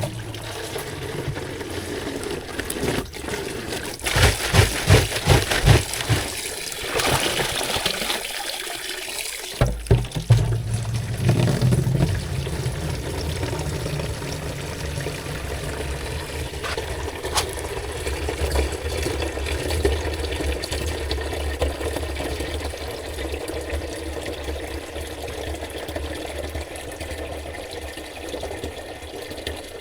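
Mountain spring water pouring, being collected into a container, with several loud knocks and bumps of handling between about four and twelve seconds in, then a steady flow.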